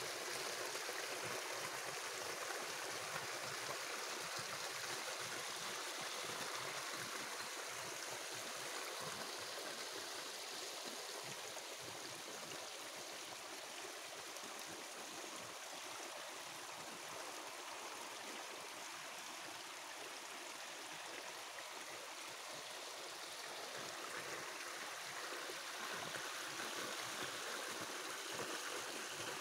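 Small stream of water running and trickling, a steady rush of water. It gets a little quieter in the middle and louder again near the end.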